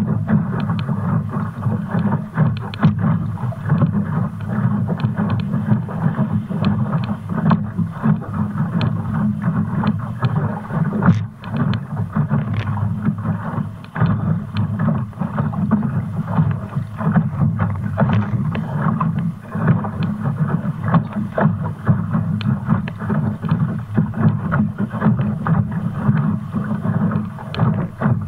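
Wind buffeting the microphone of a camera mounted on a Fulcrum Rocket sailing dinghy under way, over the rush of water along its hull. Frequent short splashes and slaps of chop against the bow break through the steady noise.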